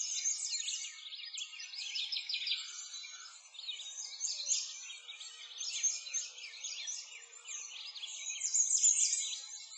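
A dense chorus of many songbirds chirping and singing at once, with quick overlapping calls. It is high and thin, with no low sound under it.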